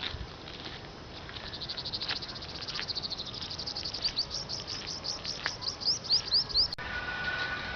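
A songbird singing a long run of quick, high, down-slurred notes that speeds up and grows louder, then breaks off abruptly near the end.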